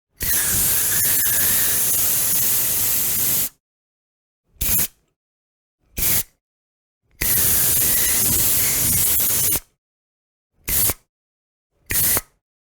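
Aerosol spray can spraying in a series of hissing bursts: a long spray of about three seconds, two short puffs, another long spray of about two and a half seconds, then two more short puffs.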